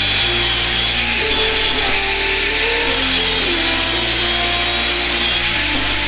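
Electric angle grinder with a thin cutting disc grinding into the edge of a steel plate, a steady high hiss, over background music with a bass line that moves in steps.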